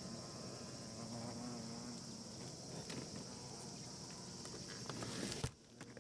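Yellow hornets buzzing low at the entrance gap of their attic nest, over a steady high-pitched insect chorus. The hornet hum fades after about two seconds, and the sound drops away sharply with a click just before the end.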